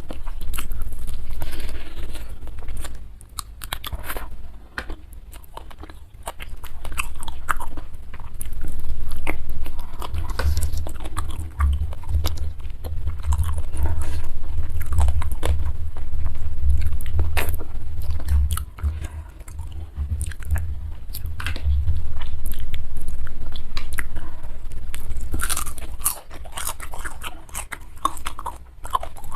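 Close-miked chewing and biting of food, with irregular wet mouth sounds and crisp crunches, and a low rumble through the middle stretch.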